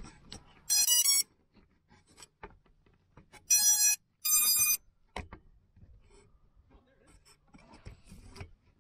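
Small FPV cinewhoop drone (Reptile Cloud 149) beeping, its lost-drone locator signal with the battery back on: one short beep about a second in, then two more close together a few seconds later. Faint rustling and footsteps in dry grass between the beeps.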